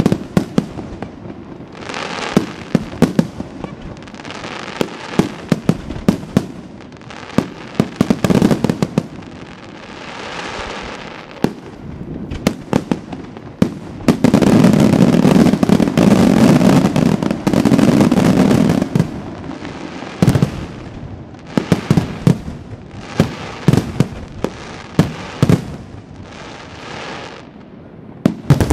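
La Rosa aerial fireworks display: a rapid run of shell bursts and bangs with crackling between them. About halfway through they merge into a dense, loud barrage for about five seconds, then separate bangs go on.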